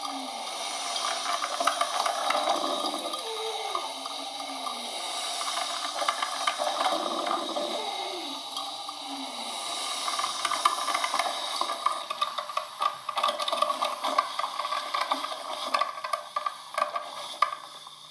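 Coffee machine running, hissing with steam and bubbling water. Quick crackling ticks join in over the second half.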